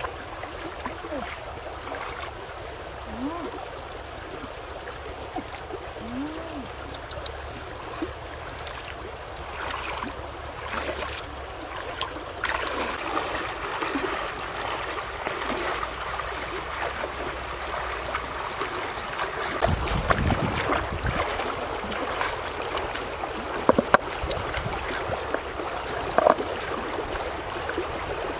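Shallow river water running and splashing around legs wading through it, with a few sharp clicks near the end.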